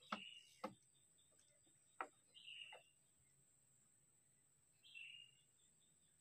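Near-silent riverside: a bird chirps briefly three times, over a faint steady high whine. A few sharp clicks come in the first three seconds.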